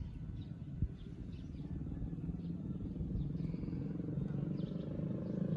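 A vehicle engine's low, steady drone, growing gradually louder as it draws near.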